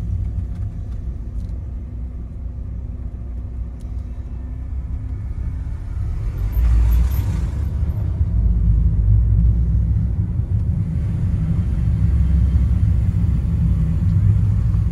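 Low rumble of a car heard from inside the cabin as it rolls slowly downhill, growing louder about six seconds in, with a short hiss around the same time.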